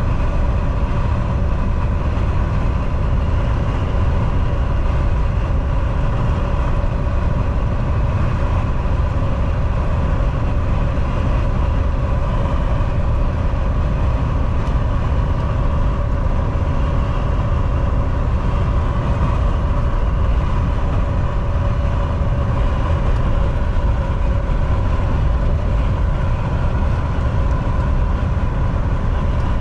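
Semi truck driving at steady speed: a constant low engine drone and road rumble with a faint steady whine above it.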